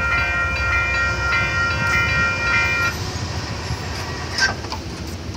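Railroad grade-crossing bell ringing in a steady rhythm, about two strikes a second, over the low rumble of a passing train; the bell cuts off about three seconds in. A short sharp sound follows a little past four seconds.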